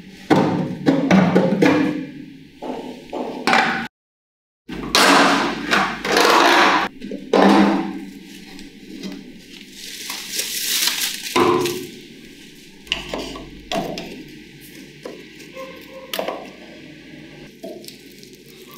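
Irregular clanks, knocks and scraping as the rusty steel body panels and headlamp rim of a 1962 Vespa scooter are handled and pried loose. The sound cuts to silence for a moment about four seconds in.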